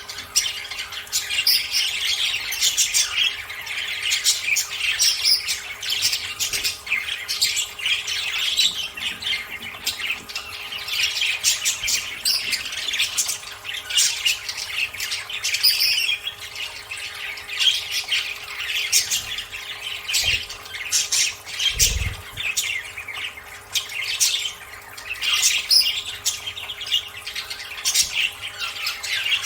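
A flock of budgerigars chattering and squawking without a break, with rapid overlapping chirps. A faint steady hum runs underneath, and there is a single low thump about two-thirds of the way through.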